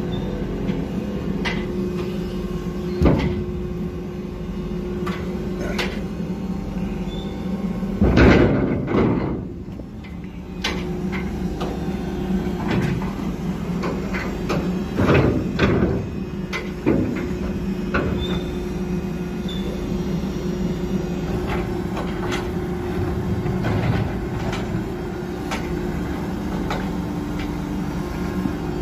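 Ship's crane working a steel clamshell grab bucket in a barge of iron ore: a steady machinery drone with scattered metal clanks and knocks, the loudest a heavy clattering crash about eight seconds in.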